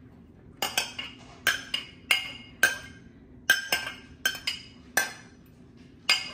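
Spoon clinking against a bowl about a dozen times at an uneven pace, each strike ringing briefly, as chopped vegetables are stirred into hummus.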